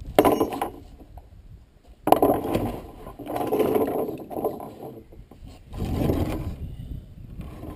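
Rubber inner tube being pulled out of a dirt bike's rear tire, rubbing and scraping against the tire and the spoked rim in three bouts.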